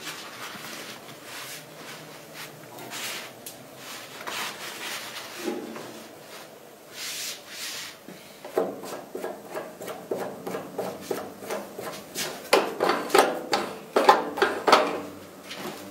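Handling noise at a cold laminating machine: soft, spaced rustles of the sheet and film, then from about halfway a dense run of rapid scraping, creaking strokes, loudest near the end.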